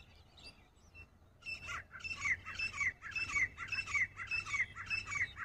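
Grey francolin (teetar) calling. After a few faint chirps, a loud, fast run of repeated ringing call phrases starts about a second and a half in, at roughly two phrases a second.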